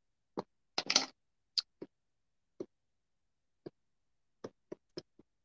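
Hard plastic clicks and taps as a clear acrylic stamp block is tapped down onto a Memento ink pad to ink a photopolymer stamp. A louder cluster of clicks comes about a second in, then single taps spaced out after it.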